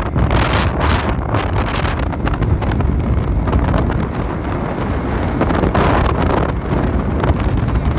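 Wind rushing and buffeting over a phone's microphone on a moving open vehicle, with the vehicle's running noise underneath.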